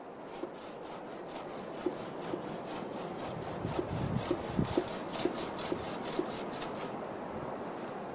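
Hand saw cutting through wood, an even run of rasping strokes about four a second that stops about a second before the end, with a few low knocks midway.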